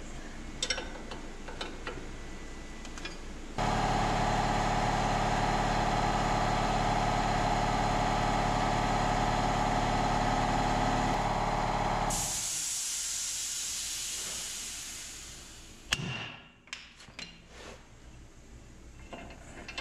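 A machine's motor starts suddenly about three and a half seconds in and runs steadily for about eight seconds. It cuts off into a hiss that fades over a few seconds. Light metallic clicks and knocks come before and after.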